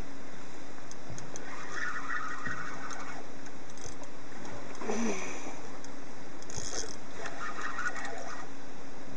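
A boat motor running steadily under a constant rushing noise, while a Penn Slammer 360 spinning reel is worked against a hooked saithe, giving two short stretches of reel noise, about two seconds in and again near eight seconds.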